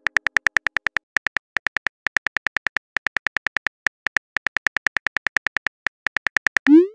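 Phone keyboard clicks from typing on a touchscreen: a rapid run of short ticks, about six to eight a second, with brief pauses. Near the end comes a short rising whoosh, the sound of the text message being sent.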